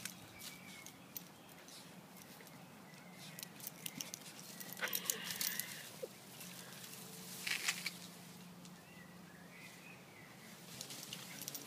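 Scratchy rustling and patter of sand and dirt as an Australian Shepherd puppy scrambles and rolls about in it, in irregular bursts that are thickest about five and seven and a half seconds in.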